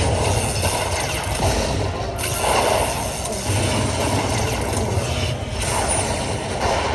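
Lightning Link slot machine playing its electronic game sounds: rapid mechanical-style ticking with a jingle layer, in sections a few seconds long.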